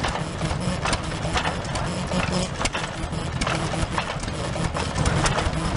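Vintage hopper-cooled stationary engine running steadily, with sharp clicks or knocks at uneven intervals over the low running sound.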